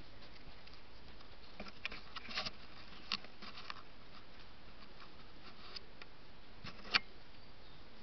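South American coatis foraging on the forest floor: scattered light rustles and crackles in dry leaf litter and soil over a steady hiss, with one sharper click about seven seconds in.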